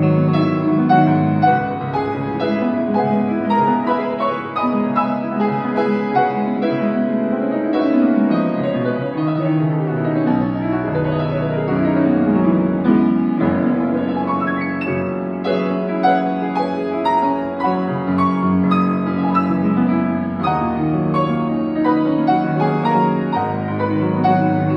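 Fazioli grand piano played solo: an improvised piece of chords and melody over held bass notes.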